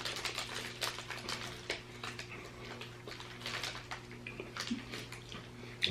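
Faint, scattered mouth clicks and small crackles of someone chewing a whole crumbly cinnamon cookie, over a steady low hum.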